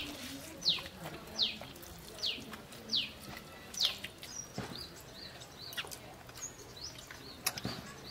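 Bird calling: a series of clear downward-slurred whistled notes, about one every three quarters of a second, followed from about four seconds in by shorter, higher chirps.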